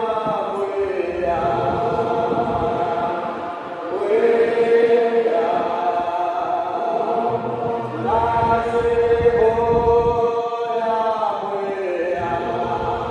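A large congregation singing a hymn together in long, held notes, in phrases of about four seconds each.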